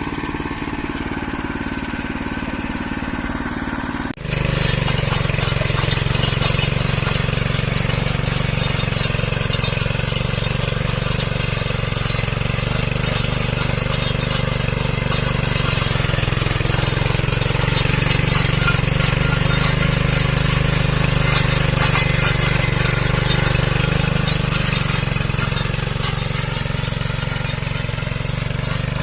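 Small engine of a walk-behind farm cultivator running steadily. A sudden break about four seconds in, after which it runs louder.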